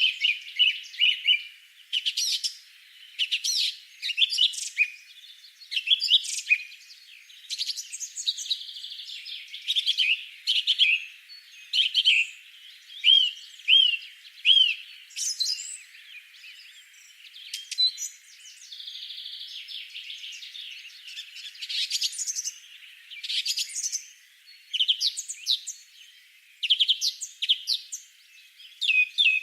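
Songbirds chirping and singing, many short chirps and quick trills overlapping throughout.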